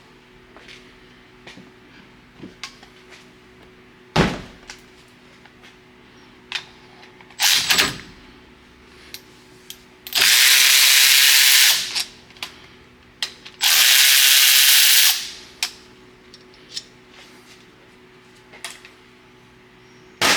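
A pneumatic air tool run in two bursts of about a second and a half each, with a steady hiss, plus scattered clanks and knocks of tools on metal between them.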